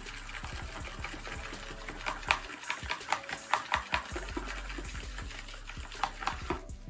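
Acrylic paint being stirred in a plastic food container with the pointed plastic handle of a tint brush: a run of light clicks and scrapes, several a second, as the handle knocks and drags around the tub.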